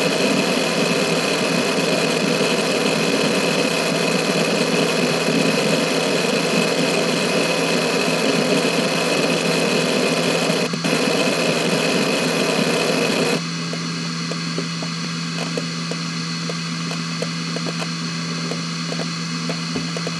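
Hitachi Ultrastar C10K147 2.5-inch 10,000 rpm SAS hard drive running a random seek test: a dense, continuous chatter of head seeks over the steady whine of the spindle. About two-thirds of the way through, the seeking stops abruptly. The steady spindle hum is left, with scattered light clicks of the heads during file access.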